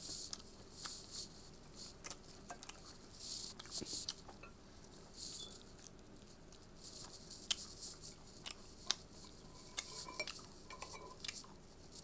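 Eating sounds: chewing and wet mouth and finger sounds in short clicks and smacks, with a spoon clinking against a dish now and then.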